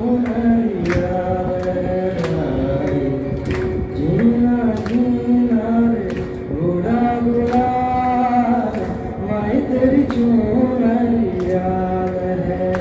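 A man singing a Hindi song into a microphone over a karaoke backing track, amplified through a PA in a hall, with held, gliding notes and a percussion beat.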